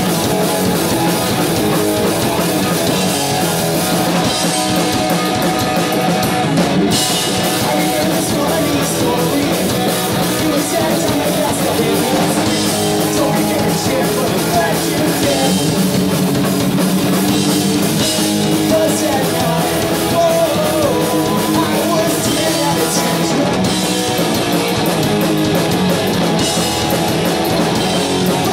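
Punk rock band playing a song live: electric guitars and a drum kit.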